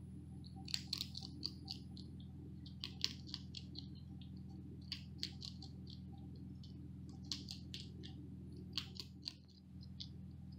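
Spotted skunk chewing and smacking on cat food: clusters of quick, sharp wet clicks every second or two, over a steady low hum.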